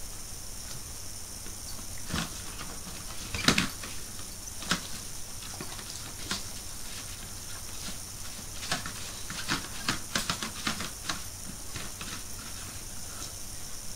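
A dog nosing and licking through a plastic chocolate tray in a cardboard box for hidden treats: scattered light clicks and knocks of plastic and cardboard, loudest about three and a half seconds in and coming in a quick flurry around ten seconds, over a steady hiss.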